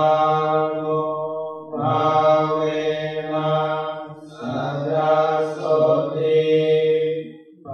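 A Theravada monk chanting Pali verses into a microphone: a slow, melodic recitation of long held tones. Three phrases are broken by short pauses for breath, about two and four and a half seconds in and near the end.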